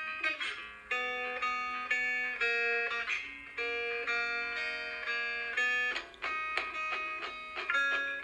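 Background instrumental music: a melody of held notes that change about every half-second.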